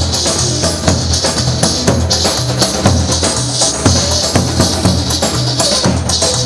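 Live dance music for a line dance: a davul struck with a stick keeps a steady beat over keyboard music.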